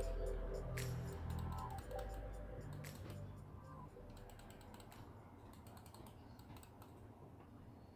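Computer mouse buttons clicking in a run of sharp, irregular clicks, with background music fading out.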